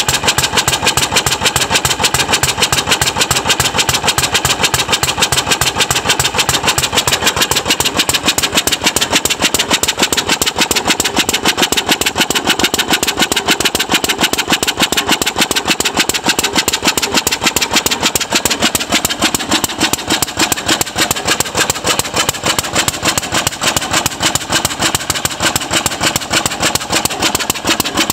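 Moffat Virtue V3 2¼ HP single-cylinder stationary engine running steadily, a rapid, even stream of exhaust beats with no let-up.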